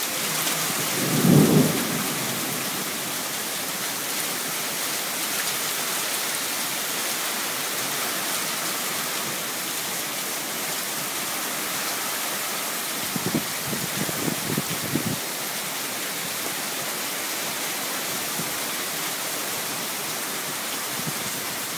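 Heavy rain pouring steadily in a thunderstorm, a constant hiss, with short low rumbles about a second in and again about two-thirds of the way through.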